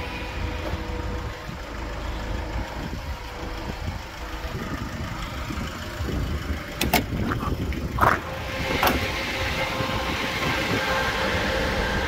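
Diesel engine of an Iveco 72C17 truck running steadily, with a low rumble and a faint steady hum. A few sharp clicks or knocks come about seven to nine seconds in.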